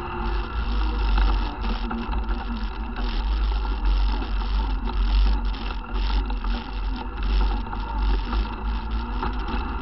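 ATV engine running steadily while riding a bumpy dirt trail, with rattling and knocks from the front rack and frame over the bumps and a heavy low rumble from the rough ride.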